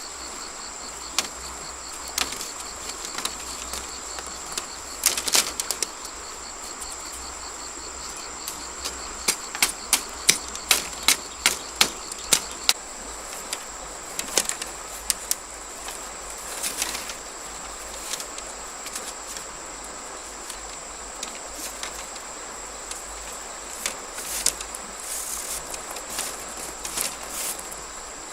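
Irregular sharp clicks and knocks, bunched into a quick run about ten to thirteen seconds in, over a steady high drone of insects.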